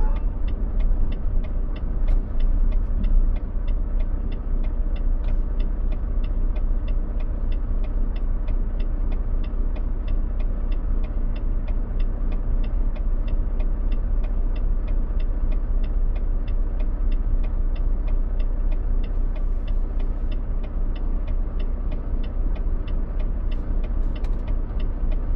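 A Volvo semi-truck's diesel engine idling, heard inside the cab, with the turn-signal flasher ticking steadily about twice a second while the truck waits at a light.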